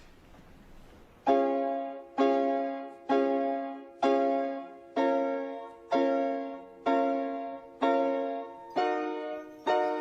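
Music: a piano strikes the same chord about once a second, letting each one fade, after about a second of quiet. The chord changes near the end.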